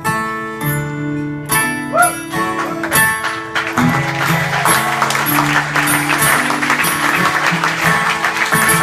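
Closing guitar chords of a live song ringing out, with audience applause building from about three and a half seconds in.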